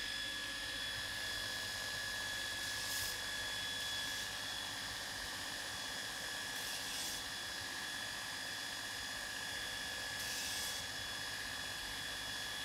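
Electric grinder deburring the cut edges of stainless steel: the motor runs at a steady high whine, and three short hissing scrapes come as the abrasive touches the metal, about every three to four seconds.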